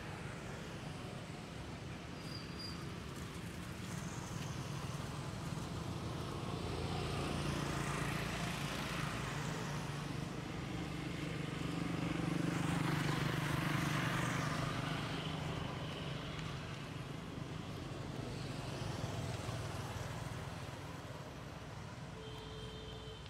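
Road traffic noise, swelling twice as vehicles pass by, once about a third of the way in and again past the middle, then fading back.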